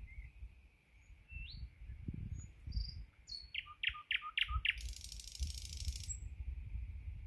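Thrush nightingale singing: a few short scattered whistles, then a quick run of about five falling notes, then a dry harsh rattle lasting just over a second, over a low rumble.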